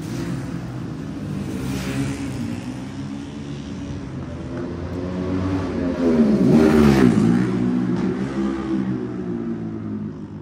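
Racing motorcycles passing close at speed on a street circuit, their engine notes dropping in pitch as each one goes by. The loudest pass comes about six to seven seconds in.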